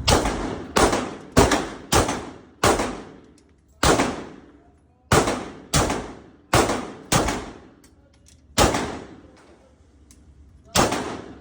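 Gunshots from a firearm at a shooting range: about a dozen single shots at an uneven pace, some in quick succession, each with a short echoing tail, and a pause of about two seconds before a last shot near the end.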